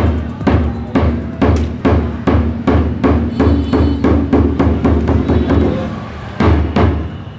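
Background music with a steady drum beat, about two hits a second over a deep bass thump. The beat breaks off about six seconds in, and a couple of loud single hits follow near the end.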